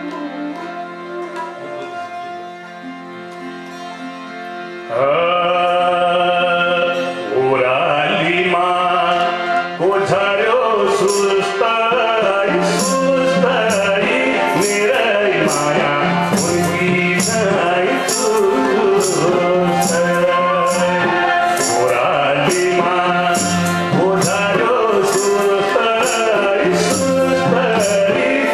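Live Nepali folk song: a harmonium plays the introduction, and about five seconds in a man's voice comes in loudly, singing the melody with the harmonium under it. From about halfway, a light percussion beat of about two strokes a second keeps time.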